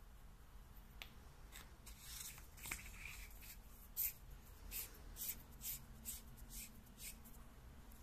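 Tail cap of a Convoy M26C aluminium flashlight being screwed onto the battery tube by hand: a series of short high clicks and scrapes from the threads and handling, the loudest about four seconds in.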